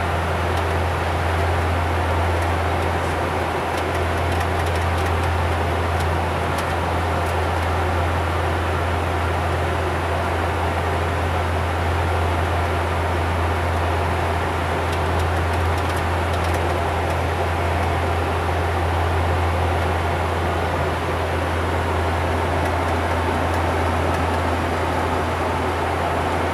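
Steady cruise drone of the Bombardier Q400's two Pratt & Whitney PW150A turboprops and six-blade propellers, heard inside the cockpit: a strong, constant low propeller hum over an even rush of noise.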